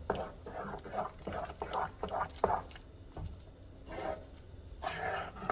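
Wooden spatula stirring a thick, saucy mix of shredded chicken, cream cheese and buffalo sauce in a nonstick skillet: irregular wet squelching strokes, with a few sharp taps of the spatula against the pan.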